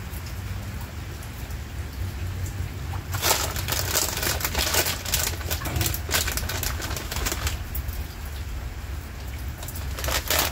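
Steady rain falling, with a low rumble underneath. There are bursts of clicks and scrapes about three seconds in, again around six seconds, and once near the end.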